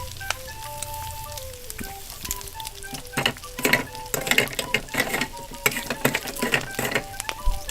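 Toy kitchen stove and frying pan playing a crackling sizzle sound effect, the crackle getting denser from about three seconds in, over a simple beeping electronic tune.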